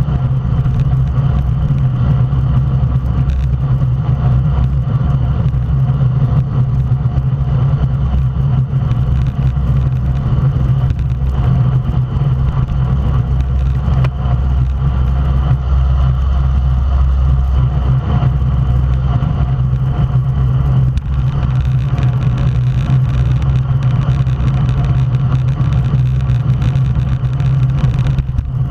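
Steady wind rush and road rumble on a bike-mounted action camera's microphone while riding a road bicycle at racing speed.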